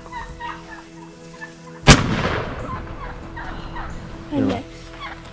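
Wild turkeys clucking, then a single shotgun shot about two seconds in, sharp and loud, with a ringing tail that dies away over about a second. Another turkey call follows a couple of seconds later.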